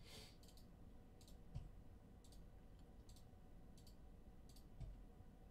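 Near silence with faint short clicks, a little under one a second, and a couple of soft low thumps.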